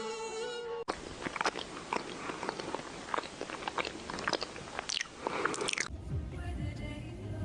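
Close-up, crunchy chewing with many irregular sharp crunches. It starts abruptly about a second in and stops abruptly near the end.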